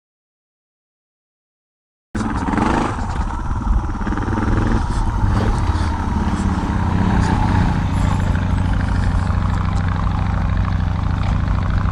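Dead silence for about two seconds, then a vehicle engine cuts in suddenly and runs steadily and loudly.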